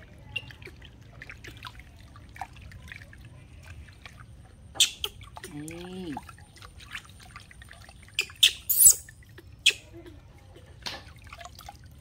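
Water splashing and dripping in a plastic basin as hands scoop and pour water over a baby monkey being bathed. Small splashes and drips throughout, with a group of louder splashes in the second half.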